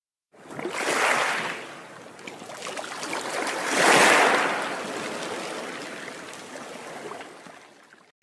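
Water sound effect for an animated logo: a rushing, wave-like whoosh that swells about a second in and again, louder, around four seconds, then slowly fades away.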